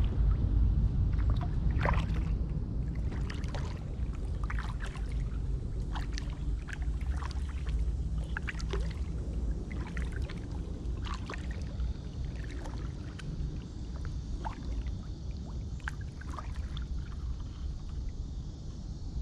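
Kayak paddle strokes: the blades dipping and splashing into calm water, with drips in an irregular rhythm about once a second over a steady low rumble. A faint steady high buzz comes in about two-thirds of the way through.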